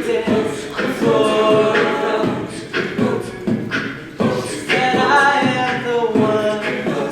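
A cappella vocal group singing in harmony, with vocal percussion keeping the beat.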